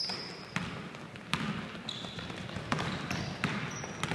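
Basketball bouncing on a hardwood gym floor as it is dribbled, about five irregularly spaced bounces, with brief sneaker squeaks on the floor near the start, about two seconds in and near the end.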